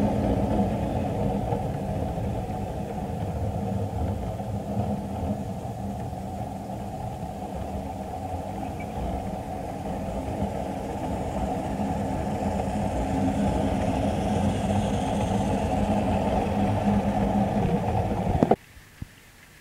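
Model diesel locomotive and freight train running along the layout's track: a steady rumble and hum of motor and wheels that cuts off suddenly near the end.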